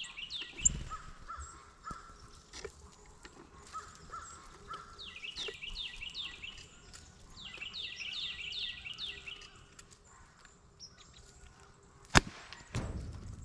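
A bird calling in series of quick, descending chirped notes, several notes to a series. About twelve seconds in, a single sharp crack of an air rifle shot, followed by a brief noisy rustle.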